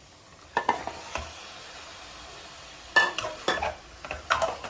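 Chicken pieces going into a pan of frying masala: a steady sizzle, with a utensil knocking and scraping against the pan in sharp clacks a little after the start, a cluster about three seconds in and again near the end.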